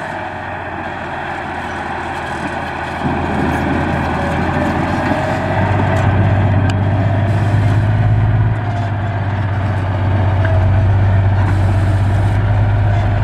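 Heavy construction machine's diesel engine running with a deep, steady drone, growing louder about three seconds in and again a couple of seconds later.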